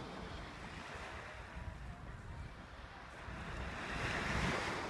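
Seaside ambience of surf and wind, with wind rumbling on the microphone. The noise swells for about a second near the end, like a wave washing in, then drops back.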